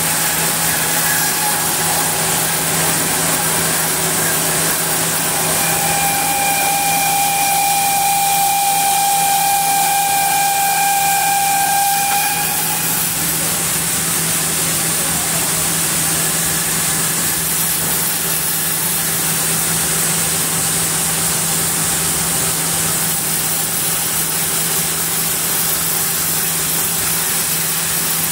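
Large log band saw at a camphor log, running steadily with a low hum under a loud hiss. A high, steady whine comes in about six seconds in and fades out about six seconds later.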